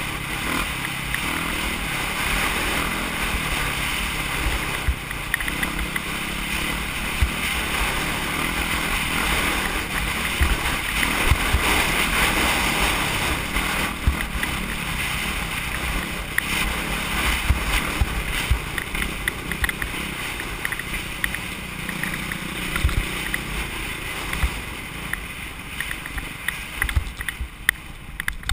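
Dirt bike engine running under way over rough ground, mixed with heavy wind on the microphone and frequent knocks from the bumpy trail. It gets quieter over the last few seconds as the bike slows.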